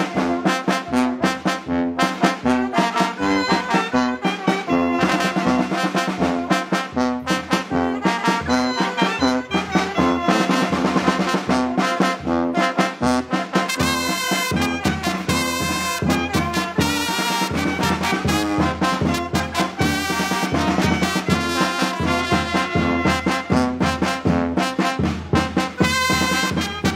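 Village brass band (banda) playing a rhythmic tune, with slide trombone, trumpets, alto saxophone, baritone horn and sousaphone. Deep bass notes grow stronger about halfway through.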